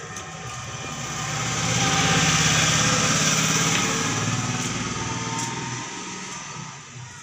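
Small-engined motor vehicle passing by: its engine swells to its loudest about two to three seconds in, then fades away.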